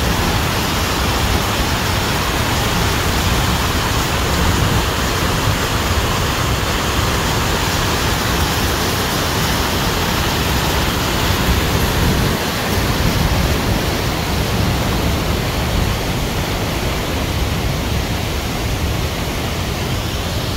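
A fast mountain stream rushing over rocks in white water: a loud, steady rush of water.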